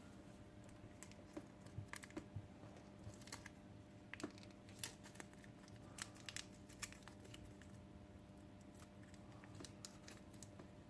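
Faint, scattered clicks and light taps of small plastic robot-kit parts being handled, with a faint steady hum underneath.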